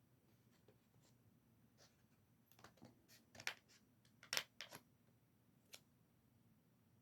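Faint handling of tool packaging being opened: a few short, sharp clicks and snaps, bunched in the middle, against an otherwise quiet small room.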